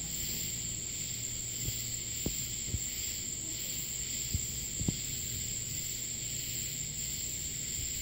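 Steady high trilling of crickets in a nighttime insect chorus, with a few faint clicks scattered through the middle.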